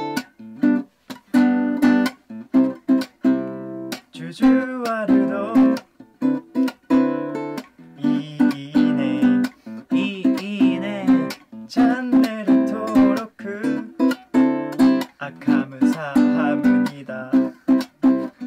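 Background music: strummed acoustic guitar, with a steady rhythm of chord strokes and a melody line over them.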